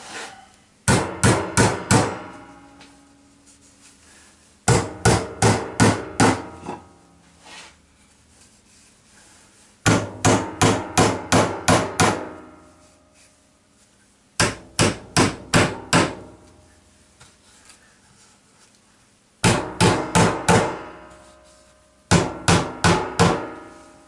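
Hammer driving nails into a timber frame: six quick runs of about five to eight blows each, roughly four blows a second, each blow ringing briefly.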